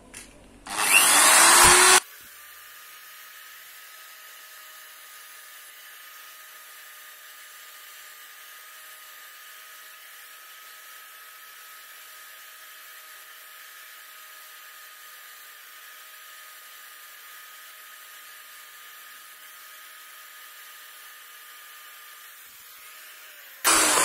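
Corded electric drill spinning a bottle-shaped grinding stone to grind out the bearing seat in an alloy bicycle hub. It runs loud for about a second, then holds a much fainter, steady whine, and comes in loud again at the very end.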